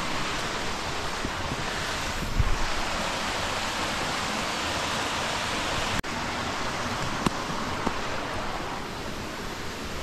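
Water from a small waterfall rushing steadily over rock ledges close by.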